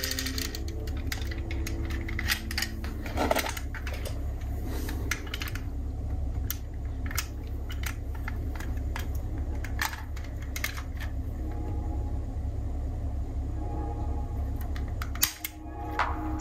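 Diecast metal scale model cars being handled: scattered small clicks and taps, irregular and a few per second, over a steady low hum.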